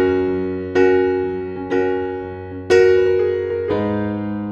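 Background music: piano chords struck about once a second, each one dying away before the next.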